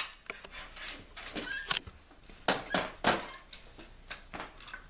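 Metal clicks, clunks and scrapes as the barrel of a Benelli Nova pump shotgun is slid onto the magazine tube and seated against the receiver, about half a dozen separate knocks.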